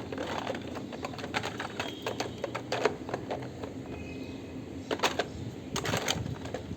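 Rapid, irregular clicking and clattering of small plastic toy vehicles being handled, with a few louder knocks about three seconds in and again near the end.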